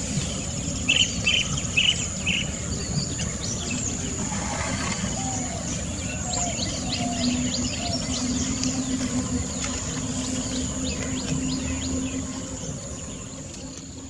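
Outdoor ambience of many small birds chirping and twittering over a steady hiss, with a quick run of four high notes about a second in and a steady low drone through the middle; it fades out near the end.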